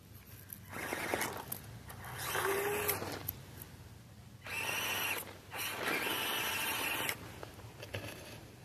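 SCX24 Wrangler 1/24-scale RC crawler's small electric motor and geared drivetrain whirring in several bursts of throttle with short pauses between them, as it climbs loose dirt.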